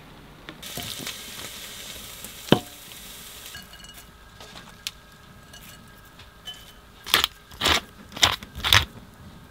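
Kitchen sounds of chili being cooked and served. A few seconds of frying sizzle include a single sharp clink of a pot or dish, and near the end come four quick rasping strokes about half a second apart.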